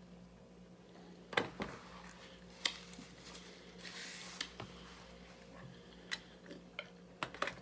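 Soft eating sounds over a faint steady hum: scattered clicks while chewing a bread roll, a brief rustle about four seconds in, and a few light clicks near the end as a utensil goes into a plastic salad container.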